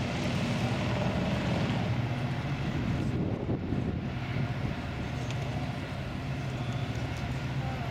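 Towboat's diesel engines running with a steady low drone while pushing a heavy barge tow upstream, the engines laboring under the load.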